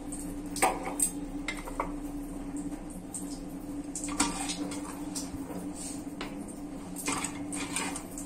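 A few separate light clinks and knocks of dishware as steamed idlis are set onto a plate, over a steady low hum.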